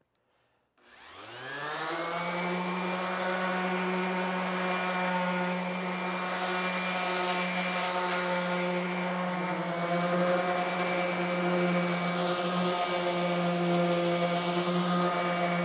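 Random orbital sander starting up about a second in, its motor whine rising to speed, then running steadily against the rudder's cured epoxy with 120-grit paper. The sanding roughs up the epoxy so the primer will bond.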